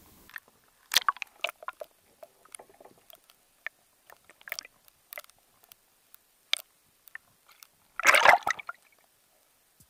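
Water sloshing around a just-released northern pike, with scattered small clicks and splashes. About eight seconds in there is one much louder splashing rush as the pike kicks away.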